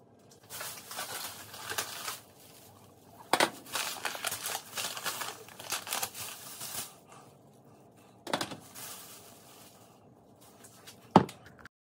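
Plastic grocery bag rustling and crinkling in several stretches as groceries are pulled out of it, with a sharp knock near the end.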